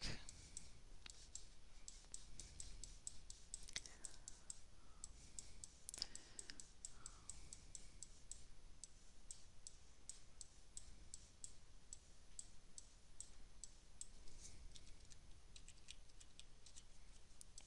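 Faint, rapid computer mouse clicking, about three clicks a second, as the mouse is clicked repeatedly to work the hair brush.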